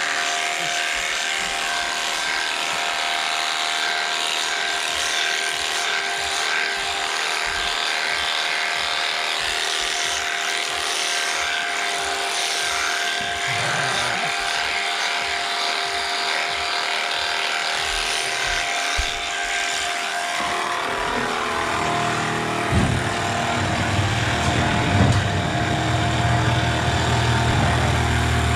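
Electric sheep-shearing handpiece running steadily as it cuts through a sheep's fleece: a continuous machine buzz with several steady tones. About two-thirds of the way through, a deeper low hum joins in and stays.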